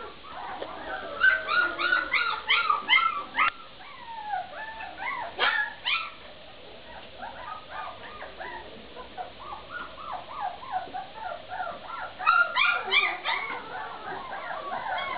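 A litter of Vizsla puppies yipping and whimpering, many short high cries overlapping. There is a dense flurry of them about a second in, softer scattered whines through the middle, and another flurry near the end.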